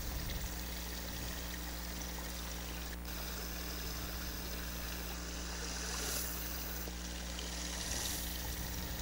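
Small stream of water running and trickling, a steady even rush, with a faint steady low hum underneath.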